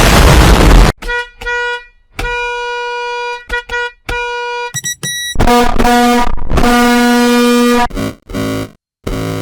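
A run of edited bus air horn blasts: a loud, harsh noise blast in the first second, then short and long honks at one pitch, a few quick higher beeps, and louder, longer honks an octave lower in the second half, each cut off sharply with silent gaps between.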